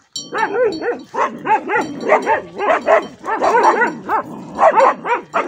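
Dogs barking rapidly and excitedly as they chase a group of bulls away.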